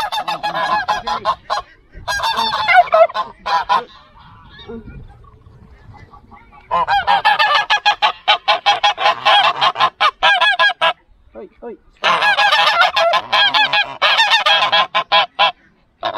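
White domestic geese honking loudly in repeated bouts of rapid calls, with a lull of about three seconds a few seconds in.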